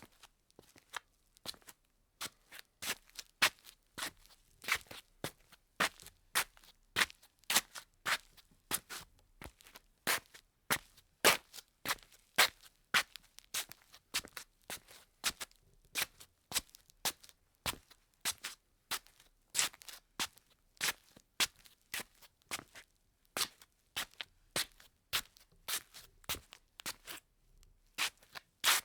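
Footsteps in slippers: a steady walk of soft slaps on a hard floor, about two steps a second. The steps are faint for the first couple of seconds, then louder and even.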